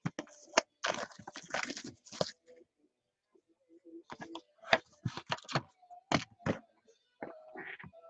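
Cardboard trading-card boxes and wrapped packs being handled by hand: a run of short taps, scrapes and rustles as packs are pulled out and set down, with a pause partway through and sharper taps in the second half.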